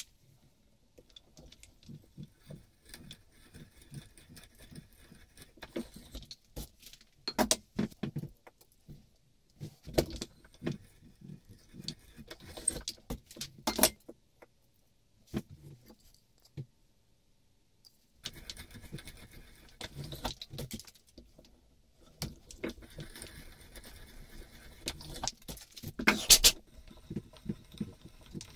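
Knocks and clicks of hand tools handled on a wooden workbench. From a little past halfway comes the steady cutting noise of an auger bit turned in a hand brace, boring into the beech plane body to waste out the mortise, broken by a few loud knocks near the end.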